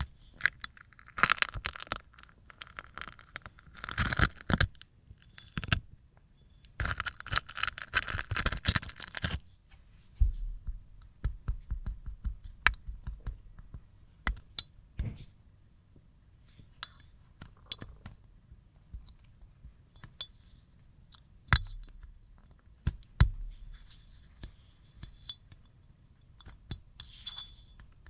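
Dried slime film being peeled off a plate, crackling and ticking as it tears away. There are two long runs of dense crackling in the first third, then scattered sharp ticks.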